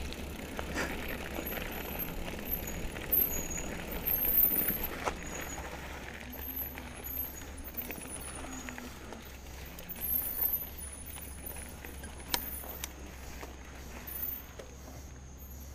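2017 Trek Remedy 7 mountain bike rolling along a dirt trail: a steady rush of tyre and wind noise with scattered clicks and rattles from the bike. Faint high chirps sound over it.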